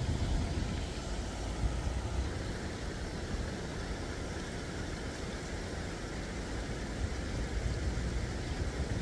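Steady low rumble with an even hiss behind it, outdoor background noise with no distinct events.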